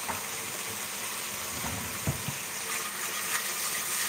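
Shrimp sizzling in oil and jerk sauce in a nonstick frying pan, a steady hiss, with two soft knocks about two seconds in. Near the end a silicone spatula starts stirring them.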